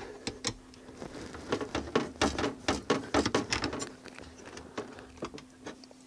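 Phillips screwdriver unscrewing the small screw that holds a laptop-size hard drive bracket: a quick, irregular run of light metal clicks and ticks from the tip turning in the screw head, thinning out after about four seconds.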